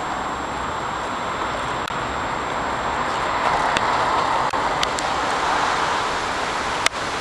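Steady city street traffic noise that swells for a few seconds in the middle, with a sharp click near the end.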